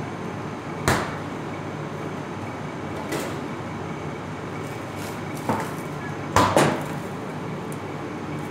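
Steady hum of commercial kitchen machinery, with five sharp knocks and clatters of kitchen items on a stainless-steel counter, the loudest a quick pair about six and a half seconds in.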